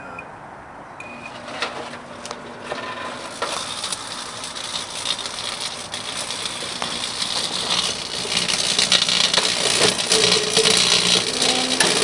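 Microwave oven running with metal cans inside: a keypad beep, a low hum, then a crackling, clicking buzz of electrical arcing that builds and grows louder.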